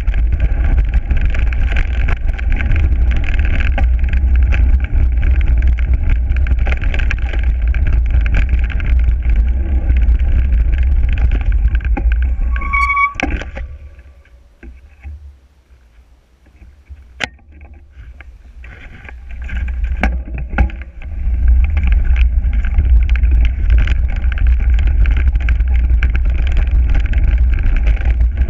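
Mountain bike rolling fast down a forest dirt track, with wind buffeting the handlebar-mounted camera's microphone and the bike rattling over the ground. About halfway through there is a short high squeal, then the noise drops away for several seconds, broken by a couple of sharp clicks, before it picks up again.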